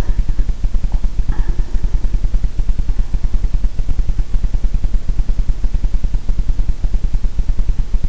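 A fast, even, low throbbing hum that runs without a break.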